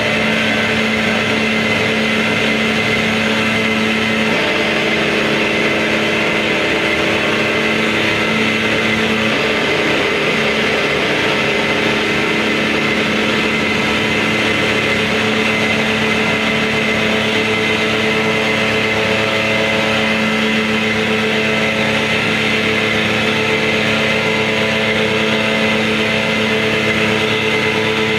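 Noise-music drone: a dense, unbroken wall of layered held tones over a steady hiss, with no beat or pauses.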